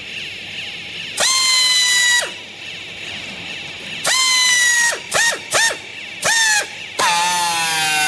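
Pneumatic strapping tool tensioning plastic strap around a compressed bale: about six short bursts of air-motor whine with hiss, each starting with a quick rise in pitch and then holding steady, the longest lasting about a second.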